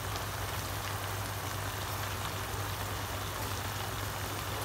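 Chicken and bamboo shoots simmering in a thin sauce in a frying pan: a steady bubbling hiss, with a steady low hum underneath.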